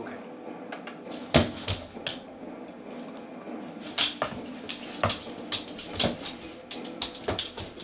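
Irregular sharp taps and knocks of steps on a hard floor, about a dozen in all, the loudest about one and a half and four seconds in.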